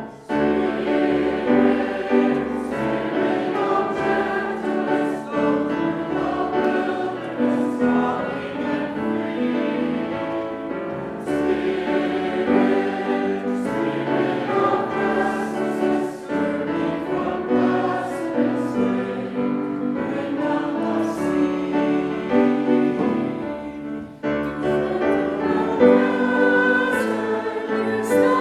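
Choir singing in sustained chords, with a short break between phrases about five-sixths of the way through.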